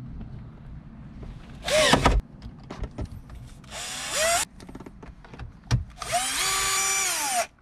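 Cordless drill-driver driving in the radio's mounting screws, run in three bursts: a short one about two seconds in, another around four seconds, and a longer steady run near the end. The motor's whine rises in pitch as each burst starts and falls as it stops.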